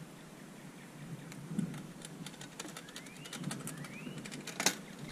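A bird whistling a pair of short rising notes, twice, about three seconds in. Light scattered clicks from the bicycle's drivetrain run through the middle and end, with one sharper click near the end.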